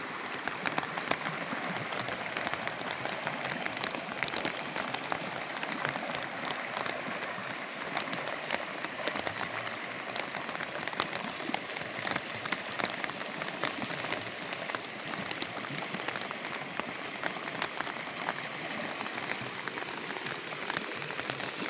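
Heavy rain falling steadily, with a dense patter of sharp drop ticks close by, over the rush of a creek in muddy flood.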